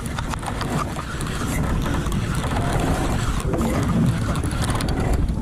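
Baitcasting reel being wound to bring in a hooked fish, a run of clicks over a steady low rumble.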